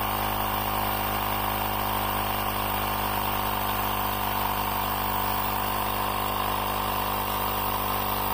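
UIBI X5 portable air compressor running steadily with an even, unchanging motor hum as it pumps a car tire up toward its 35 psi setting.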